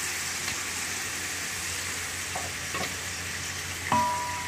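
Boiled beef sizzling in hot fat with browned onions in a steel pot, worked with a wooden spoon that gives a few light scrapes. About four seconds in, a sharp metal clang rings on briefly.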